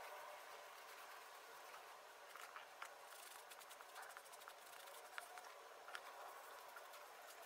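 Very faint rubbing of a cloth pad over a leather Doc Martens boot as balsam conditioner is worked in, with scattered soft ticks and scratches.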